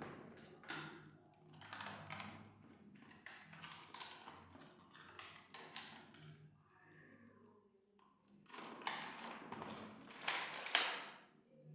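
Faint, scattered clicks and taps of small objects being handled, with a louder run of them near the end.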